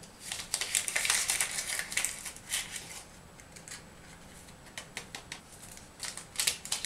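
A small paper sachet of vanillin being crinkled and torn open, in crackly rustles and clicks. The first bunch starts about half a second in, a quieter stretch follows, and the rustling picks up again near the end.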